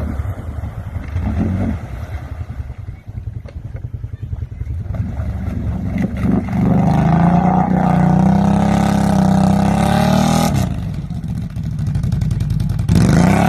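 Off-road vehicle engine running low, then revving hard for about four seconds before dropping off suddenly, with another sharp rev near the end.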